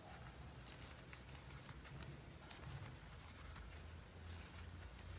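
Faint rustling and light clicks of a metal crochet hook pulling cotton yarn through single crochet stitches, over a low steady hum.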